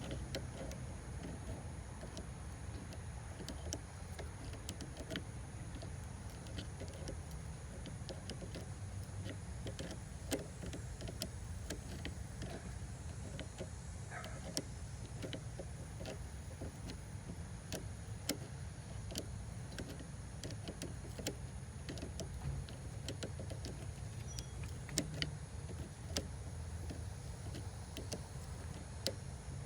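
Irregular light clicks and taps of a hand tool working a car battery terminal, over a steady low rumble.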